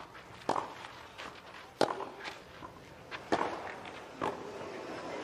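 A tennis rally on a clay court: four sharp racket-on-ball hits about a second and a half apart, with the players' shoes scuffing and sliding on the clay between strokes.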